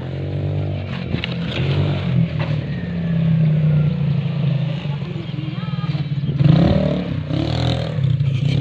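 A small engine running steadily, a loud low hum with fast pulsing, with people talking over it now and then.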